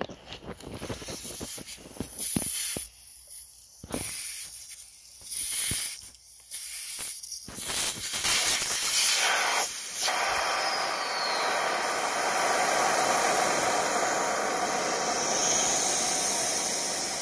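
Air hissing out of a motorcycle tire's valve stem as the valve core is unscrewed: a few short bursts at first, then from about eight seconds in a steady rush of escaping air once the core is out, slowly fading as the tire deflates.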